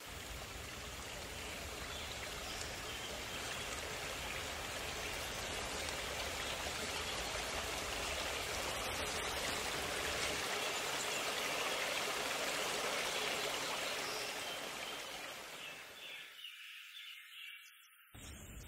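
Running water of a forest stream, a steady rushing that fades out near the end.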